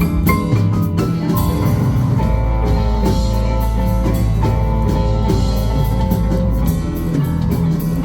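Live band playing an instrumental passage of a funk song: drum kit keeping a steady beat under bass and guitar, with no vocals.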